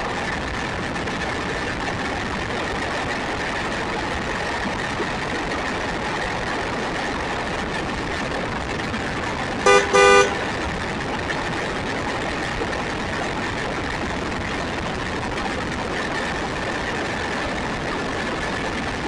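Steady running noise with a faint high whine from an RC buggy driving along a road. About ten seconds in, a car horn honks twice, the second honk longer and both louder than the running noise.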